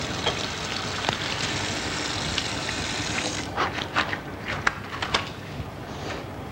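Water running from a tap into a sink, shut off suddenly about three and a half seconds in, followed by a few light clicks and knocks of small objects being handled at the basin.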